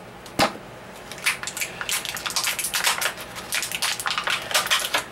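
Plastic toy packaging crinkling and crackling as plastic retaining strips are worked loose and pulled off, with irregular rapid crackles and one sharper click about half a second in.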